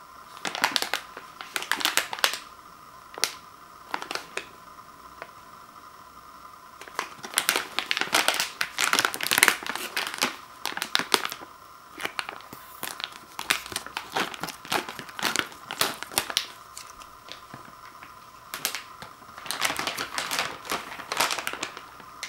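Crinkling of a metallized plastic cookie pouch being handled and torn open across the top, in repeated bursts with short pauses; the busiest stretch of crinkling and tearing comes in the middle, and near the end the bag's mouth is pulled wide.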